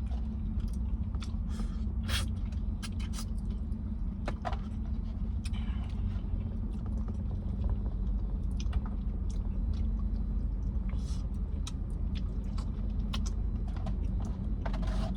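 Chewing and eating sounds with scattered short clicks of a utensil against the food container, over a steady low rumble.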